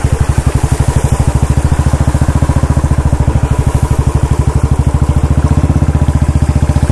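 Royal Enfield Bullet single-cylinder engine running at a steady, even beat with no change in pitch.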